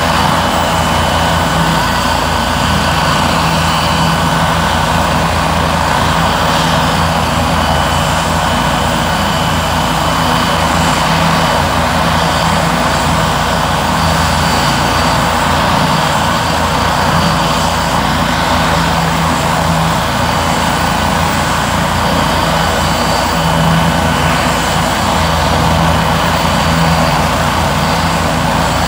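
Turbine helicopter overhead, running steadily and loudly: a high turbine whine over a low rotor hum that holds even throughout.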